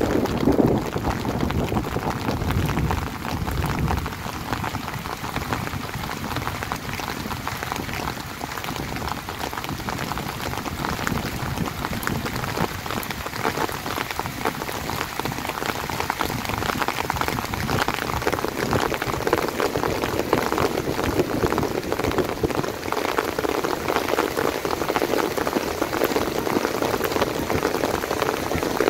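Heavy rain falling steadily, a dense patter of drops hitting surfaces, with a fuller, lower rush building in the last third.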